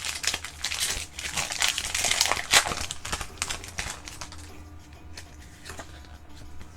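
Foil booster pack wrapper being handled and torn open: dense crinkling for the first three seconds or so, then fainter, scattered crinkles.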